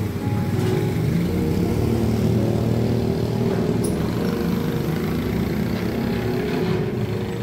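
Small motorcycle engines running as the bikes ride past along the street.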